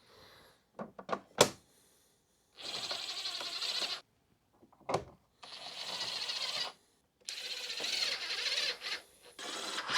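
Cordless electric screwdriver driving small hex screws into an electric unicycle's side panel: four short whirring runs of about a second and a half each, one per screw, after a few clicks of screws and bit being set in place.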